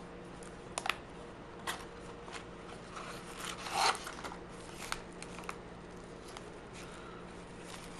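Packaging being handled and opened by hand: scattered light clicks and taps with short rustles, the longest rustle a little under four seconds in.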